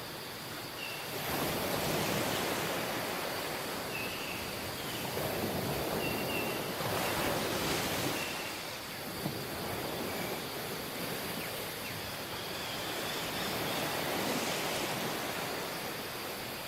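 Sea waves washing onto a beach, the surf rising and falling in slow surges every few seconds, with a few faint short high chirps over it.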